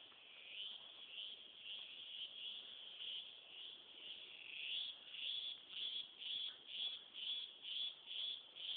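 Insects calling in a forest: a high, shrill chorus that from about halfway settles into a regular pulsing, about two pulses a second.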